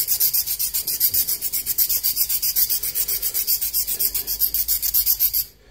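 Diamond file stroked rapidly back and forth across the tip of a lathe thread-cutting tool, filing a small radius on its front face: an even rasping at about six strokes a second that stops abruptly near the end.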